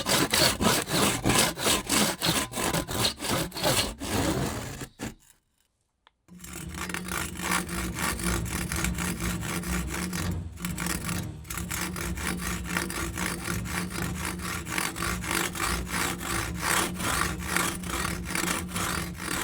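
Hand saw cutting wood in rapid back-and-forth strokes, about three a second. The sawing stops about five seconds in for a second of silence, then resumes a little quieter, with a steady low hum beneath it.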